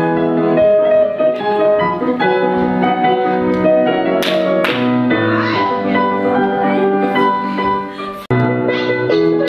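Piano music playing a melody of steady, changing notes, with two sharp taps about four seconds in. Near the end the sound dips briefly, then comes back abruptly.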